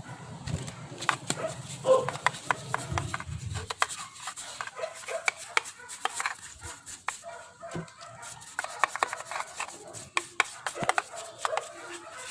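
Rapid scratchy scrubbing strokes as a very dirty motorcycle mag wheel is cleaned with degreaser, with a dog barking now and then in the background.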